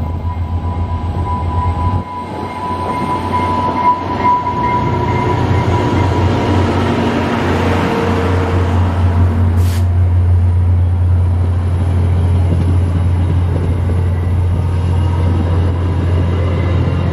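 VIA Rail F40PH-3 diesel locomotive and its passenger train passing close by at speed, a steady low drone under the rumble of the passing cars. A steady high-pitched tone sounds over the first few seconds and fades out, and there is a single sharp click about ten seconds in.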